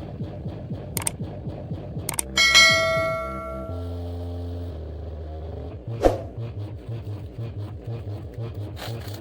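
Music played through a bandpass bass-tube subwoofer, with a heavy repeating bass pattern and a ringing bell-like chime about two and a half seconds in.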